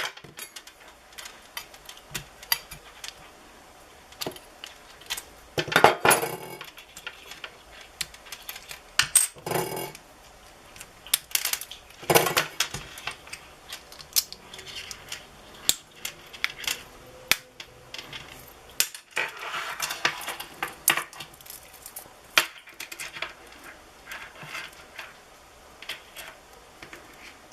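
Small metallic clicks, taps and scrapes, scattered and irregular, from handling an opened wristwatch and its button-cell battery, with a few louder rustling scrapes now and then.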